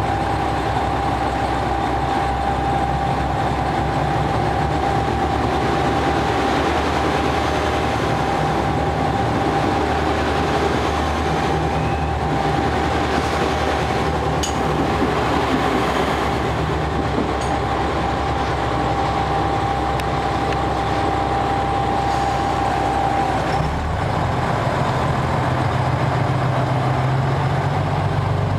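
JR Shikoku 2000 series diesel multiple unit standing at the platform with its diesel engines idling steadily, a steady high tone over the engine note. About 24 seconds in the high tone stops and the engine note rises as the train begins to pull away.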